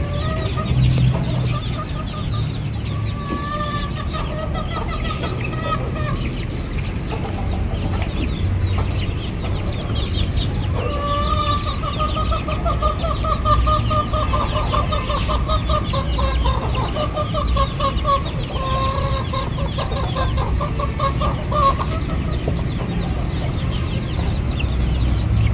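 Hens clucking, with two long, quivering drawn-out calls: one near the start and a longer one from about ten seconds in.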